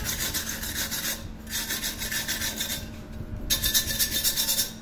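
Rapid back-and-forth scraping of a hand-held abrasive over the aluminium body of an old pressure cooker, in three spells of quick strokes. The last spell is the loudest. It is cleaning the metal around the handle mounting.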